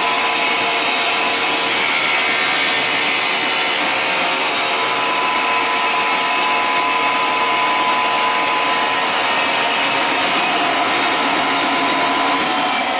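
BBQ skewer sharpening machine running with sticks fed through on its toothed wheels: a loud, steady machine noise of motor and grinding, with a steady hum over it. A falling tone comes in near the end.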